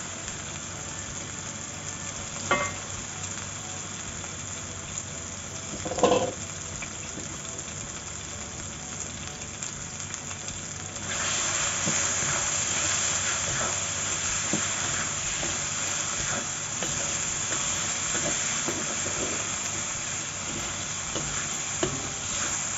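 Chicken pieces frying in a wok of chilli and tomato paste, sizzling steadily while a spatula stirs them. Two sharp knocks against the wok come a few seconds in, and the sizzle grows louder and brighter about halfway through.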